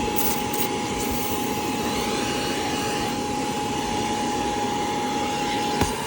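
Cordless Hoover spot cleaner's suction motor running steadily on its higher setting, with a constant whining tone over a rushing air noise. A brief click sounds near the end.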